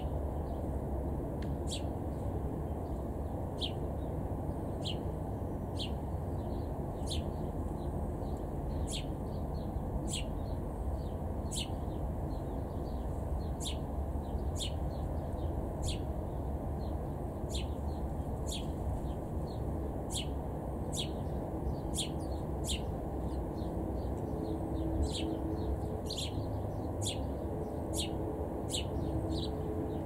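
A bird chirping repeatedly, short sharp chirps at an irregular rate of about one a second, over a steady low background rumble.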